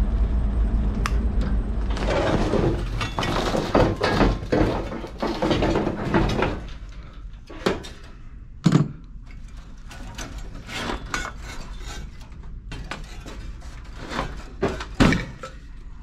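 Hand work on a fan coil unit's sheet-metal heater section as its electric heaters are freed from their power wires: several seconds of dense clattering and scraping of metal, then scattered clicks and knocks, with two louder knocks, one about halfway through and one near the end.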